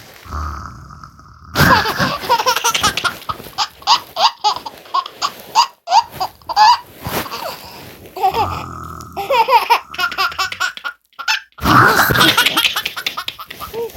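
A one-year-old baby laughing hard in long runs of quick belly-laugh bursts, set off by a person's fake snoring. The low snore comes near the start and again about eight seconds in, each time followed by a fresh fit of laughter.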